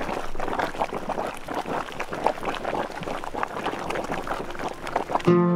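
Geothermal hot spring water boiling up out of the ground among stones, bubbling and gurgling in quick, irregular splashes. Acoustic guitar music comes in near the end.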